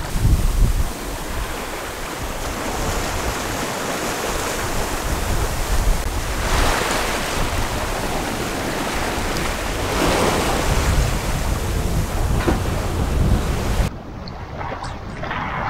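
Wind buffeting the microphone over water rushing along the hull of an aluminium sailing yacht under way, with louder surges of spray about six and ten seconds in. Near the end it cuts abruptly to a quieter, duller background.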